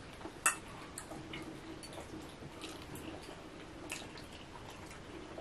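Quiet eating sounds: a few sharp clicks and taps of a metal fork on a plate and of chewing, the loudest about half a second in, over a faint steady hum.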